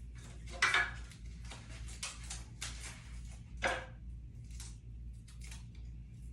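Hands handling small metal clips and stick-on balancing weights on a ceiling fan blade: a run of short scrapes and rustles, with two sharper clicks, one about half a second in and one a little after three and a half seconds. A steady low hum runs underneath.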